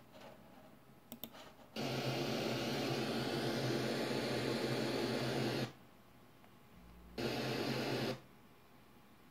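A few small clicks, then the SDR receiver's demodulated audio switches on as the VHF walkie-talkie module keys its transmitter: a loud steady hiss with a low hum that cuts in suddenly, runs about four seconds, stops, and comes back for about a second.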